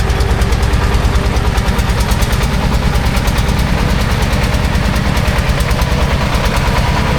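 Diesel engine running steadily close by, with a rapid, even chugging.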